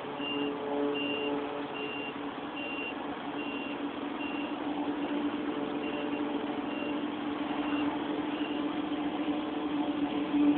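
A vehicle's reversing alarm beeping evenly, about once every 0.8 seconds, over the steady hum of a running engine; the beeps stop about eight seconds in.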